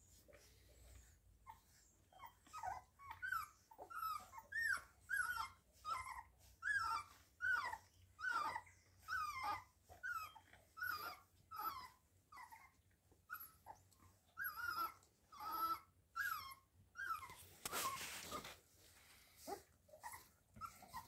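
Three-week-old Groenendael puppies whimpering while they nurse: a long run of short, high squeaks, each falling in pitch, about two a second, thinning out near the end. A brief hissing rustle comes in just before the end.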